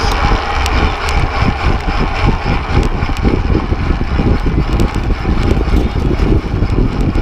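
Wind buffeting the microphone of a camera mounted on a fixed-gear race bike at speed: a loud, fluttering rumble over the hiss of tyres on the road, with a few sharp ticks.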